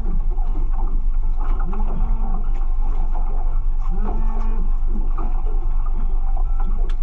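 Small fishing boat's motor running with a steady low rumble, and a short rising-and-falling tone coming back about every two seconds.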